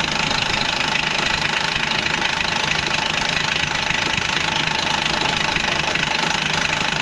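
A power tool running steadily at full throttle, a loud even rushing noise with a faint steady whine, then cutting off suddenly near the end.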